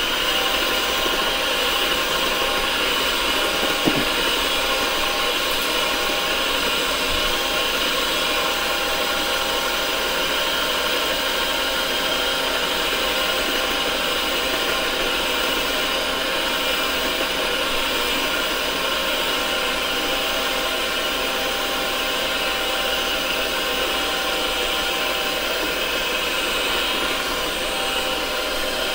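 Electric hand mixer running at a steady speed, its beaters whisking cake batter in a glass bowl, with one light knock about four seconds in.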